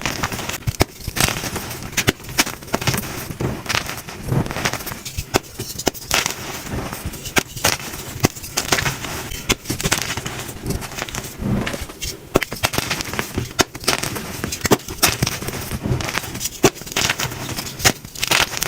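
Blocks of gym chalk being crushed and crumbled by hand, a dense run of sharp crunches and crackles, sped up.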